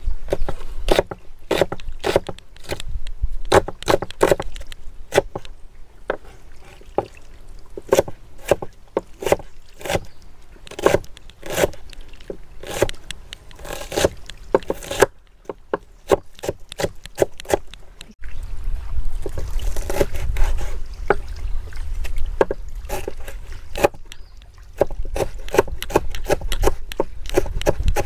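Kitchen knife slicing an onion and then chopping coriander on a wooden cutting board: a quick, uneven run of sharp knocks of the blade on the wood, several a second. Roughly two-thirds of the way through, a low rumble joins under the knocks.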